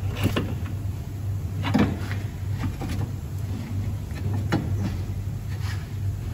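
Metal clunks and knocks as a new front lower suspension arm is pushed up and twisted into place on a VW Polo Mk5, with three louder knocks spread through, over a steady low hum.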